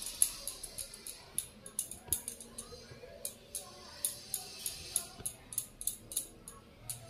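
Bangles on both wrists clinking together in quick, irregular, high-pitched jingles, several a second, as hands roll besan laddu mixture between the palms.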